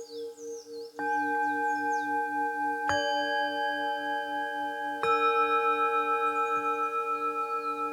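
Tibetan singing bowls struck three times, about one, three and five seconds in, each strike adding a new ringing tone over the bowls already sounding, all with a slow wavering pulse. Birds chirp faintly at the start.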